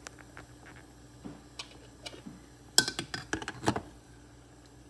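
Metal tongs clinking against a steel saucepan and a car engine thermostat as they grip it in near-boiling water: a quick cluster of sharp clicks about three seconds in, with a few fainter ticks before it.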